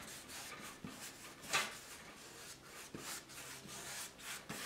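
Quiet scrubbing and scraping strokes of acrylic paint being worked onto a canvas board, with a few short, sharper strokes, the loudest about a second and a half in.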